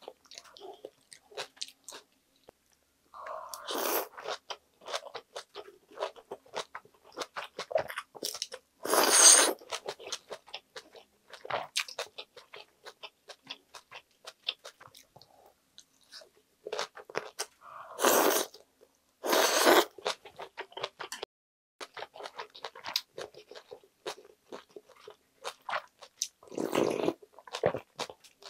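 Close-miked chewing of mulhoe, crunchy shredded vegetables and raw fish, a dense crackle of wet bites. Several louder slurps of the cold broth and noodles come through, the last as a spoonful of broth is sipped near the end.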